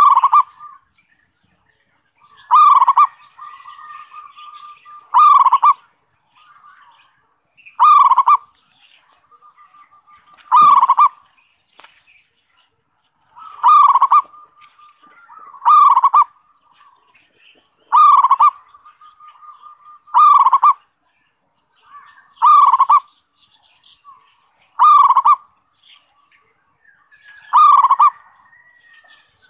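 Zebra dove (perkutut) singing its 'kerot' (ngerot) style song: a short, loud cooing phrase repeated about every two to three seconds, a dozen times, with softer rolling notes between the phrases.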